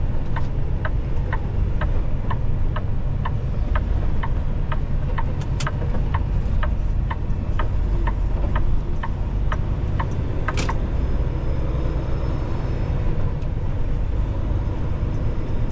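Inside a semi-truck's cab: the diesel engine's steady low rumble, with the turn signal ticking about twice a second for the first two-thirds, then stopping after one sharper click.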